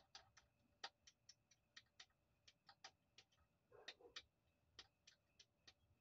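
Faint, irregular sharp clicks, about three a second, from a hand tool working the triangular rear-axle nut of a Lime Gen 4 electric scooter loose, with a short scrape about four seconds in.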